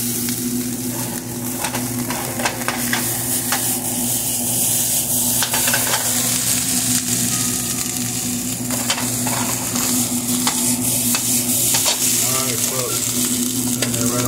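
Cubed steak sizzling as it sears in a hot frying pan, with a spatula scraping and turning the pieces in short clicks now and then. A steady low hum runs underneath.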